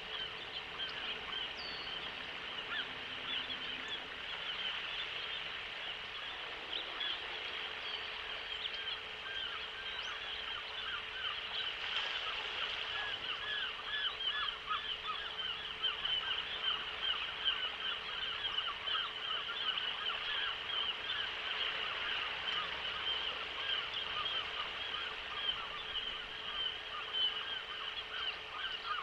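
Many seagulls calling together: a dense chorus of short, repeated, high calls that grows busier from about eight seconds in. These are the gulls harassing and dive-bombing young bald eagles. A faint steady hum runs underneath.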